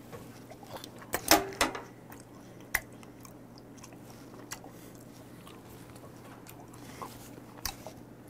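A man chewing raw beef liver close to the microphone: a burst of loud mouth clicks and smacks about a second in, then scattered single clicks as he keeps chewing.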